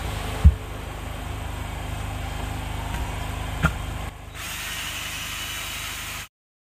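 Cordless drill driving a rotary scrubbing brush, spinning and scrubbing shampoo foam into a leather car seat, with a faint high whine from the motor. There are two sharp knocks from the tool being handled, one early and one about three and a half seconds in. The sound cuts off abruptly near the end.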